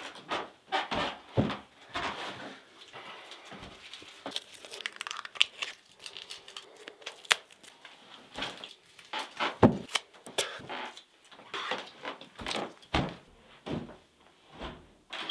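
Irregular rustling, crinkling and tearing of small adhesive plaster wrappers being ripped open, with scattered clicks and light knocks.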